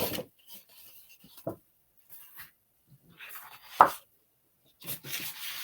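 Sheets of cardstock being handled and shuffled: scattered rustles and light taps, with one short, louder sound nearly four seconds in and steadier sliding near the end.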